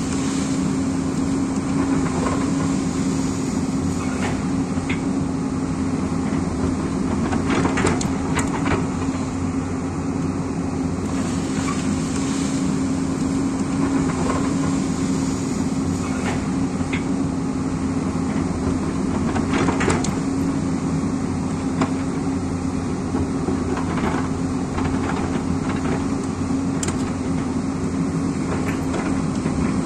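Hyundai crawler excavator's diesel engine running steadily under load as it digs into a hillside. Scattered knocks and clatters come as the bucket cuts into earth and stones, and soil falls.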